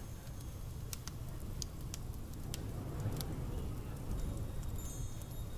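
Layered room ambience: a low steady rumble under irregular small crackles and clicks, with faint high ringing tones near the end.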